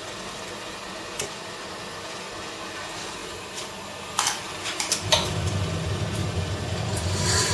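Glass studio equipment running with a steady hiss. A few sharp metal clinks come just past the middle, then a low steady rumble starts about five seconds in and carries on.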